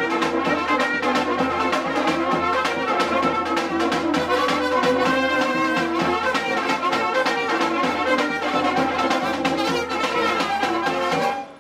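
Brass band music led by trumpets over a steady drum beat. It drops out briefly near the end.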